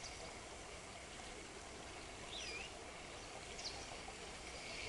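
Faint riverside ambience: a steady low hiss of flowing water with a couple of short bird calls, one about two and a half seconds in and a brief one near four seconds.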